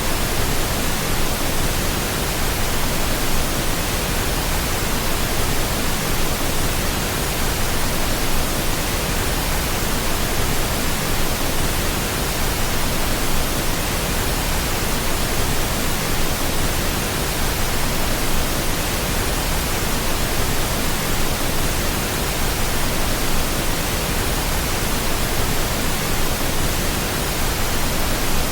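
Steady pink noise: an even, unbroken hiss with no changes or events.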